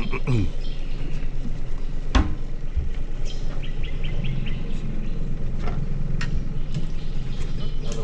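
Boat motor running at a steady low idle, with a quick run of about six chirps near the middle and a sharp knock about two seconds in.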